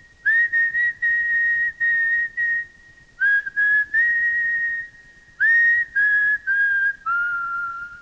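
A person whistling a slow tune in held notes with short breaks, mostly on one high pitch, the melody stepping down over the last couple of seconds.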